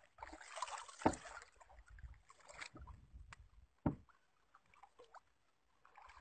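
Water splashing and sloshing against a boat's side, with two sharp thumps about a second in and near four seconds in, as a hooked fish is worked alongside the hull.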